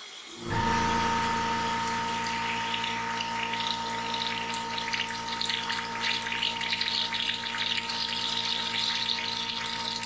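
A small air compressor starts about half a second in and runs steadily, humming with a hiss. Compressed air is being blown into the mower engine's oil fill tube to push the old oil out through the drain hose.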